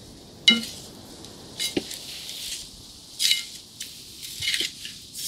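A wooden spatula clinking and scraping against a large metal frying pan of dry-fried chicken as it is stirred: four sharp, ringing metallic clinks about a second apart.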